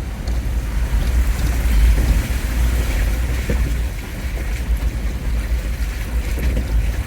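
Jeep Wrangler driving: a steady low rumble of engine and tyres, with a hissing haze of road and water noise over it.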